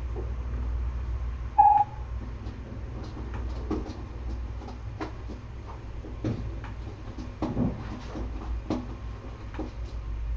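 Steady low hum with scattered light clicks and taps, and one short high tone about one and a half seconds in, the loudest moment.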